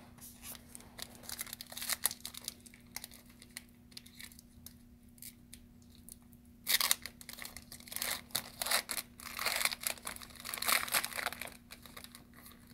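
Light rustles and clicks of trading cards being handled. About halfway through, a foil card pack is crinkled and torn open, louder and denser for several seconds.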